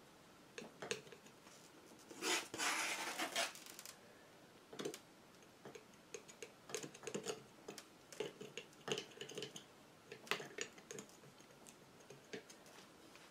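Metal palette knife working thick acrylic paint: one scrape of about a second and a half near the start, then irregular light taps and scratches as the paint is dabbed onto a canvas panel.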